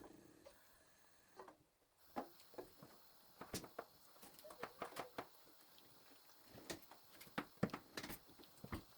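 Irregular light taps and clicks, scattered unevenly and coming more often after about two seconds in.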